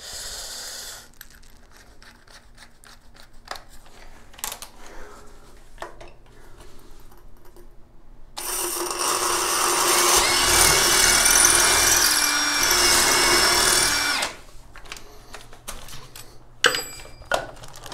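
Cordless drill running for about six seconds, drilling into the ceramic tile shower wall, starting a little past the middle. Before it, light clicks and knocks of handling.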